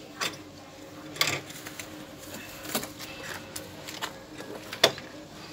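Wooden pigeon cage with a wire-mesh door being handled: a few sharp clicks and rattles of wire and wood, about a second or more apart, the loudest near the end.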